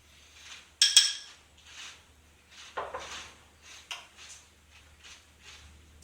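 A metal spoon clinks sharply against a cereal bowl about a second in, then softer, irregular crunching and mouth noises follow as a mouthful of puffed corn cereal in milk is chewed.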